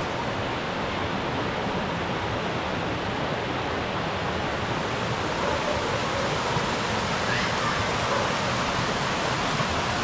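Shallow rocky stream tumbling down small cascades over boulders: a steady rushing and splashing of water.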